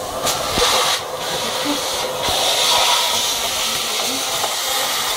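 Vacuum cleaner running, a steady hiss of air through its hose that dips briefly twice in the first few seconds.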